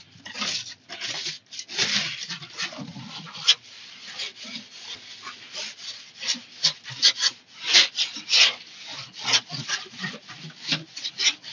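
Handling noise: a phone's microphone rubbing and scraping against a hooded sweatshirt, an irregular run of short scratchy rustles.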